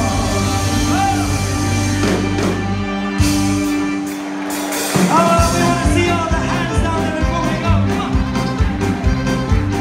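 Live band music with a singer. Sustained chords in the first few seconds, then the drums come in about five seconds in with a steady beat under the vocal.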